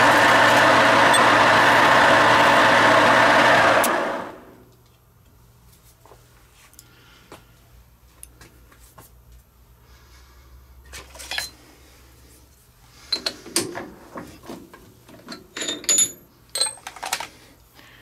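Metal lathe running loud and steady, switched off about four seconds in and spinning down quickly. A faint hum remains, with scattered metallic clicks and clanks, busiest near the end, as tools and the steel part are handled.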